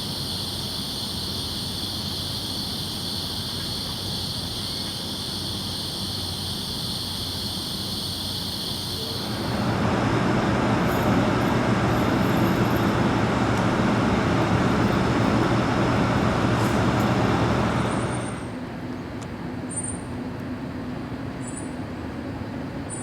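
Urban traffic noise with a steady high-pitched whine over it. About halfway through a louder vehicle sound swells up for some eight seconds, then falls back, and a few short, faint, high chirps follow near the end.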